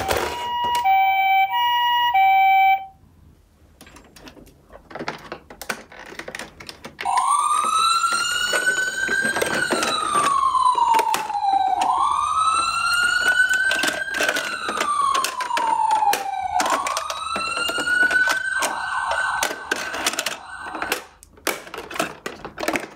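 Toy ambulance electronic sirens. First a two-tone 'pee-po' siren alternates between two pitches and cuts off about three seconds in. Then, after plastic clicks of handling, a toy ambulance's wail siren rises and falls slowly, about every five seconds, with clicks and knocks from the toy's plastic doors being worked.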